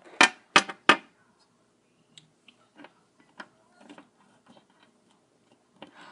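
Three quick sharp taps in the first second, like small plastic toy figurines knocked on a hard surface, then faint scattered clicks of handling.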